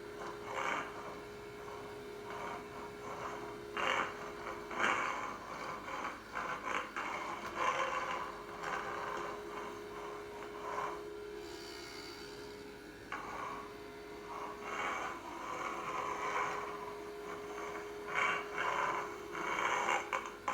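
Small DC vacuum motor running with a steady hum, with irregular bursts of rushing and scraping as the nozzle sucks and is worked over a surface.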